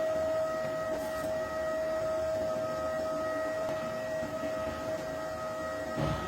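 A fire alarm project's electronic alarm buzzer sounding one steady high tone with overtones, held without a break. There is a short knock near the end.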